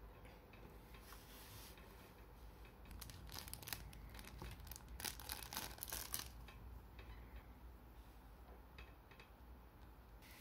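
Clear plastic parts bag crinkling as it is handled and pulled open, in a run of bursts in the middle, loudest near the middle, amid faint clicks of small toy parts being handled.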